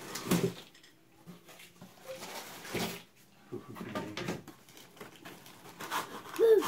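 Long cardboard box being handled and opened: a few knocks, scrapes and rustles of the cardboard lid and flaps, with a short high voice near the end.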